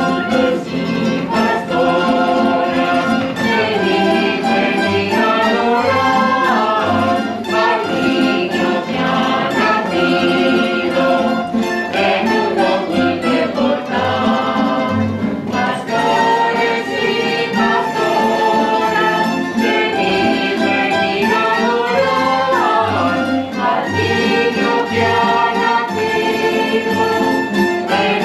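A Spanish folk rondalla of guitars and other plucked strings accompanies a choir singing a Christmas villancico, with a steady dance rhythm.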